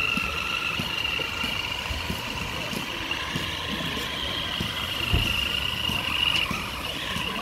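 Electric motor and gearbox of an RC scale crawler whining steadily, the high whine wavering slightly as it drives, with scattered low knocks and crunches and one heavier knock about five seconds in.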